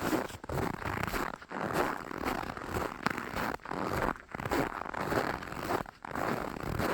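Footsteps crunching through snow at a steady walking pace, roughly one step a second.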